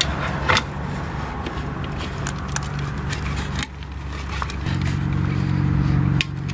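Plastic clicks and knocks of a weatherproof outdoor outlet cover being opened and a plug pushed in, over a steady low mechanical hum. The hum dips a little past halfway and comes back stronger.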